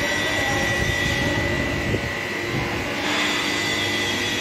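Steady, loud machinery noise on a factory floor, with a constant high whine running through it.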